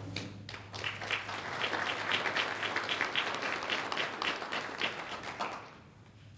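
Audience and panel applauding: many hands clapping together, which dies away about a second before the end.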